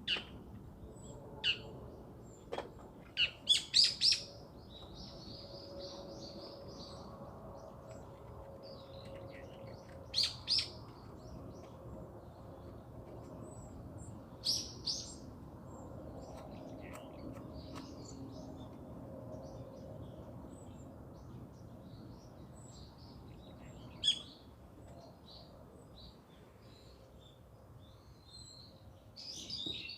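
Small wild birds chirping in short, scattered calls, a quick run of several about three seconds in and further pairs later, over a steady low background hiss.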